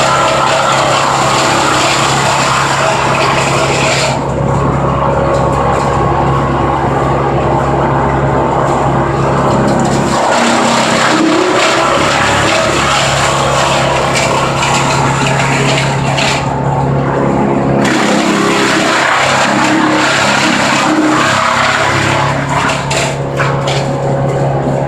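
Vermeer BC1500 brush chipper running at full throttle, loud and steady, with the grinding of the chipping changing every few seconds as branches are fed in.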